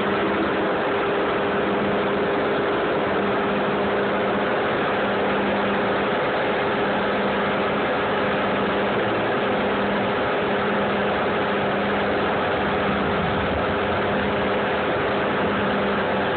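Concrete saw's engine running steadily at a constant pitch, a dense mechanical drone with a steady hum.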